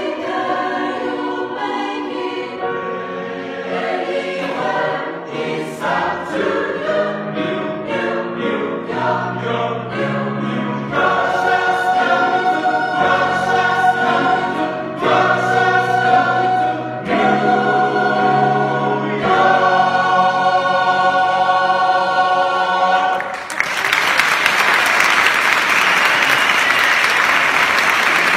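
Mixed choir singing in harmony, closing on a long held chord; near the end the singing stops and an audience breaks into applause.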